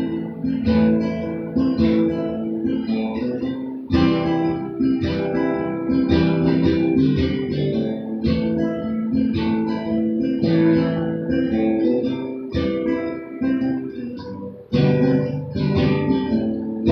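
Acoustic guitar strummed in an instrumental passage between sung sections of a folk song, with strong fresh strums about four seconds in and again near the end.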